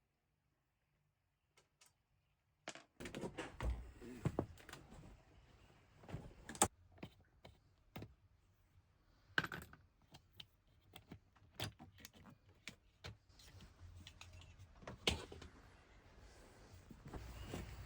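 Silence, then scattered clicks, taps and knocks of hand tools and metal parts being handled and set down, with a few sharper knocks among them.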